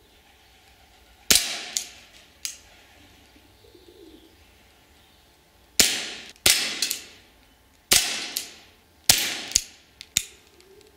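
Walther CP99 CO2 pellet pistol firing five sharp shots at irregular intervals, with fainter clicks between them.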